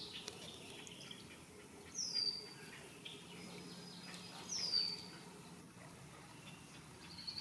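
A bird gives two short, high whistled calls that each slide down in pitch, about two and a half seconds apart. Fainter bird chirps sound between them.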